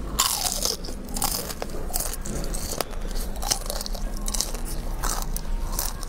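Close-miked biting and chewing of crunchy fried food: a quick string of irregular crackling crunches.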